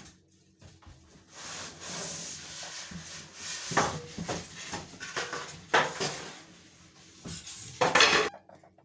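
Packaging being pulled and rubbed off a new washing machine during unboxing: a rustling, scraping handling noise with a few louder scrapes, stopping abruptly near the end.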